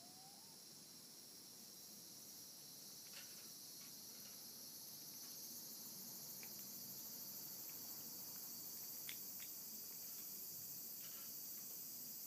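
A cat chewing and licking chunks of canned cat food, heard as faint, soft clicks every second or two, over a steady high-pitched hiss that grows slightly louder.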